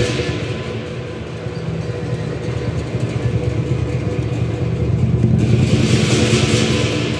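Lion dance percussion: the big lion drum beaten in a fast, rumbling roll, with crash cymbals dropping out at first and clashing in loudly again about five seconds in.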